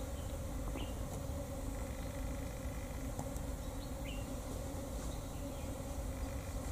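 Steady buzzing drone of insects, with a few faint short chirps.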